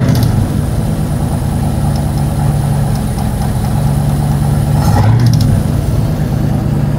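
Ford 460 cubic-inch big-block V8 idling with a lopey, uneven rhythm, briefly louder about five seconds in. The engine has a lifter noise on number four cylinder that the owner hopes is a collapsed lifter.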